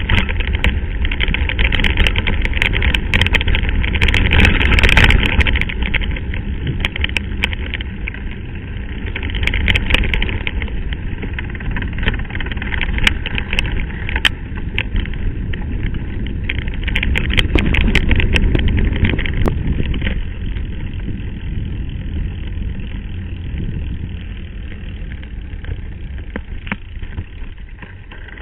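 A mountain bike rolling over a rough, stony gravel track: a steady rumble of tyres and wind on the camera's microphone, with frequent sharp clicks and rattles from stones and the bike.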